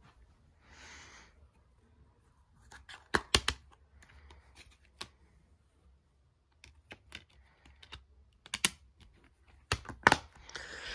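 A plastic DVD case and its discs being handled, giving a string of sharp plastic clicks and taps. The loudest clicks come in a cluster about three seconds in and again near the end, as the case is snapped shut.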